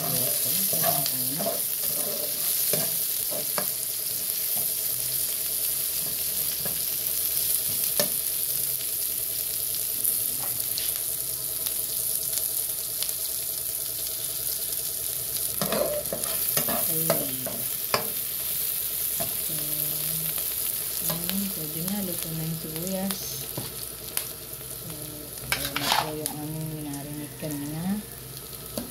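Chopped onion and garlic sizzling steadily as they sauté in oil in a nonstick wok, with a spatula scraping and clicking against the pan as they are stirred.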